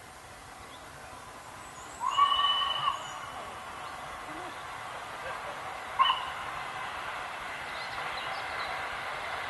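A steam locomotive whistle, still out of sight, gives one long blast of about a second, then a short toot about four seconds later. Under it the approaching train's rumble grows steadily louder.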